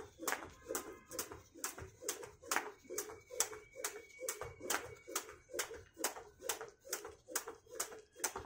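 Jump rope slapping a concrete roof as a man skips, with his feet landing on each turn: a steady rhythm of sharp slaps, about two and a half a second.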